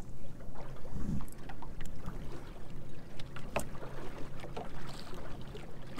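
Water lapping against the hull of a fishing boat on the lake, over a steady low rumble, with scattered light clicks and knocks.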